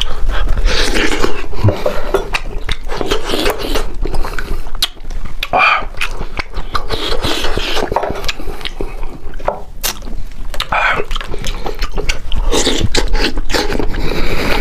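Close-miked eating of braised lamb head by hand: wet chewing, smacking and sucking as meat is gnawed off the bone, with many small irregular clicks.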